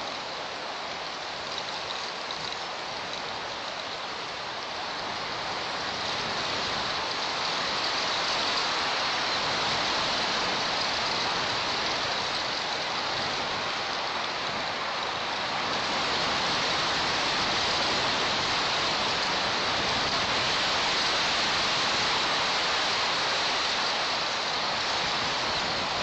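Strong wind rushing past the nest camera's microphone in a pine treetop: a steady noise that swells in a gust from about a quarter of the way in and again past the middle.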